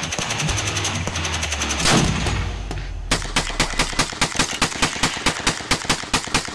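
Gunfire: shots over a low steady background for the first few seconds, with one loud bang about two seconds in. Then, from about three seconds in, a fast even string of semi-automatic long-gun shots at about four a second.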